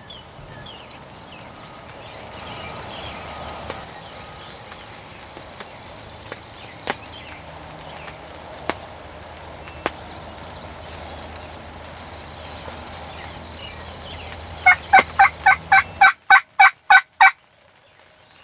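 Steady rain with a few sharp drip clicks, then near the end a quick series of about ten turkey yelps, roughly four a second, each note falling in pitch.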